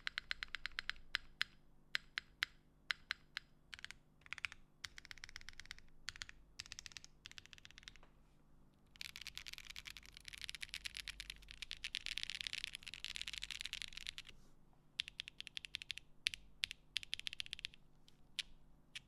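Typing on a Cycle7 custom mechanical keyboard with stock Kailh Box Taro switches and GMK keycaps, no foam inside: bursts of key clacks, with a dense, fast flurry of keystrokes lasting about five seconds in the middle.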